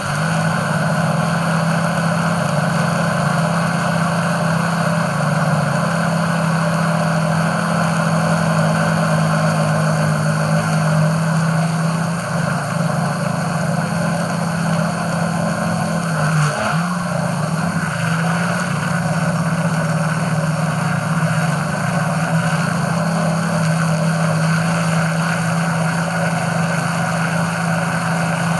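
DJI Phantom 4 Pro quadcopter's motors and propellers humming steadily while it hovers, heard from just beneath it; the pitch wavers briefly just past halfway.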